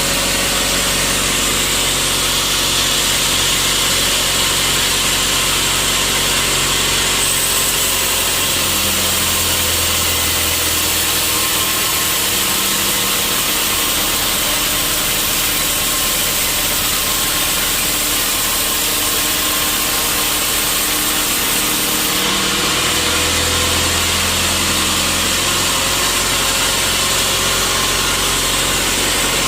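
Sawmill saw running steadily with its motor. For a stretch in the middle the sound changes and the motor's tone sags slightly, as the blade cuts into a hard teak stump.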